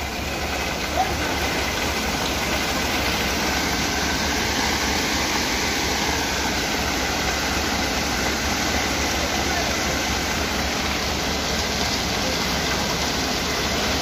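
Concrete mixer truck unloading: its engine running steadily to turn the drum while coarse concrete slides down the discharge chute as a constant rushing noise.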